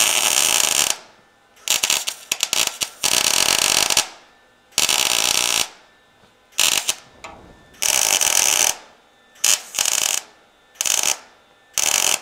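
Wire-feed (MIG) welder tack-welding a steel patch into rusty car-body sheet metal: about ten short tacks of arc noise, each under a second, with brief pauses between.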